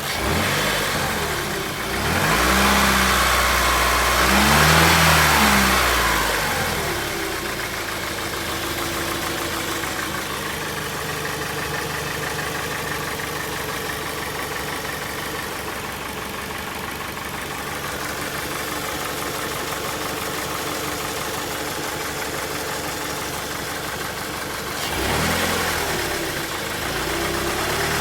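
Dodge Stratus 2.4-litre four-cylinder engine blipped up and down twice in the first few seconds, then idling steadily before being revved again near the end. A knock comes from low down in the engine, although the oil level is full and compression is 13 in every cylinder; the engine vibrates strongly.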